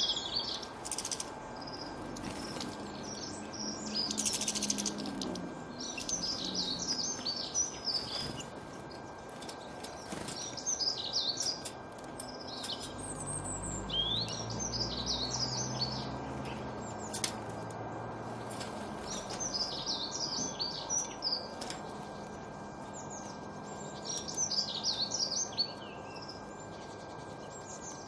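Small songbirds chirping and twittering in short, busy bursts every few seconds. A faint low rumble swells and fades about halfway through.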